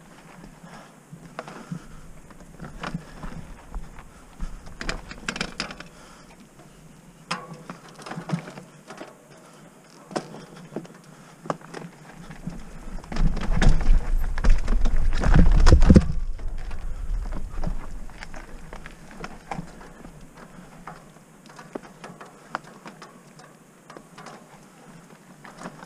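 Trek Roscoe 6 mountain bike rolling over a rocky, gravelly trail: tyres crunching and the bike rattling, with many irregular knocks. There is a louder, rougher stretch with a low rumble about halfway through.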